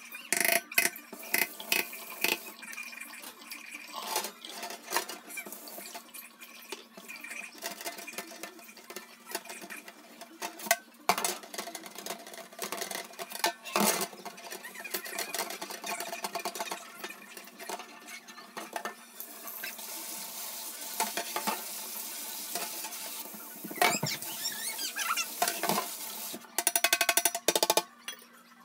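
Dishes, pots and cutlery clattering and clinking as they are handled in a kitchen, sped up, with many sharp knocks and a quick run of clinks near the end.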